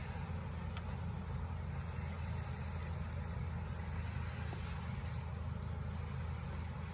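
Steady rushing noise of a shallow creek's running water, under a low, uneven rumble.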